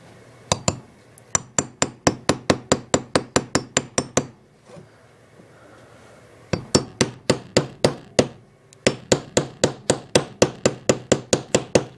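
Claw hammer tapping on a steel socket to drive a new dust seal onto a motorcycle shock's seal head: quick, light, even taps about five a second, in three runs with short pauses.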